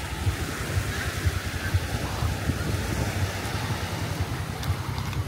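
Wind buffeting the microphone in irregular low gusts over the steady wash of sea waves on the shore.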